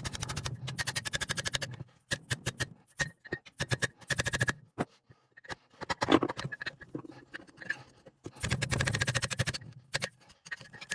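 Ratchet wrench clicking in two quick runs, one at the start and another about eight seconds in, with scattered single clicks and metal scrapes between them, as fasteners on the 231J transfer case are worked loose.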